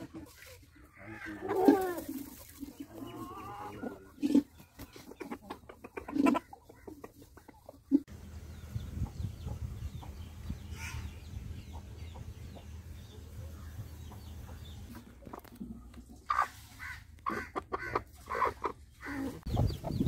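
Domestic chickens calling: a drawn-out call about a second in, then a string of short clucks near the end. A low rumbling noise runs through the middle.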